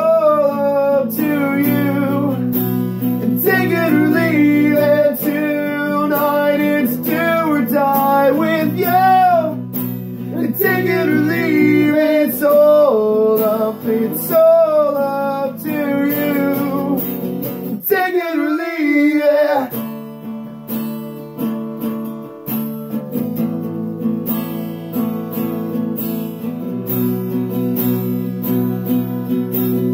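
Acoustic guitar strummed in steady chords, with a man singing over it for the first two-thirds. The voice stops about twenty seconds in, and the guitar carries on alone.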